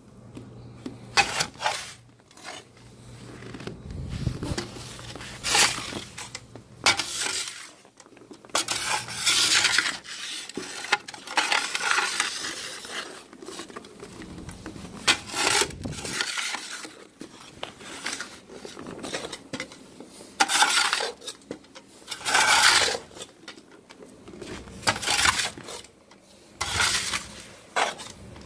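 Snow shovel blade scraping and scooping snow across deck boards: repeated rough scrapes at an uneven pace, mostly short, with a longer run of scraping about halfway through.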